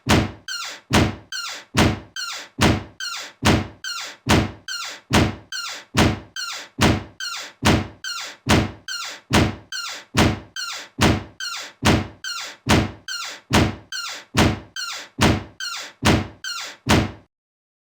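A door being shut, looped over and over: each closing is a loud thunk followed by a softer second knock, repeating a little more than once a second. The loop cuts off suddenly near the end, leaving silence.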